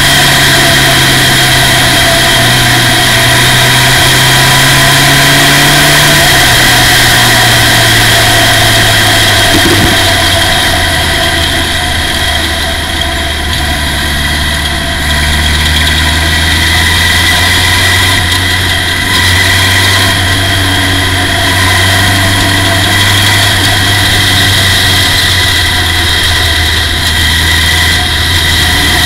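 Formula Ford single-seater's engine heard from the cockpit while the car is driven on track. The engine note drops about six seconds in, then runs steadily at lower revs through the corner.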